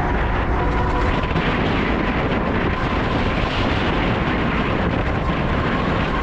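Wind rushing and buffeting over the microphone of a moving electric bike, with a thin steady whine that rises slightly in pitch.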